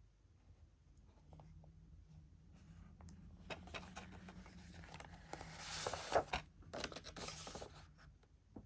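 Plastic DVD case being handled: rubbing and scraping with small clicks, busiest and loudest in the second half.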